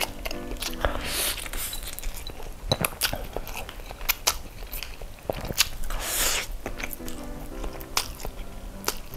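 Close-up eating sounds of a person slurping instant noodles and chewing them with the mouth open: two longer slurps about a second in and about six seconds in, between many short wet clicks and smacks of chewing.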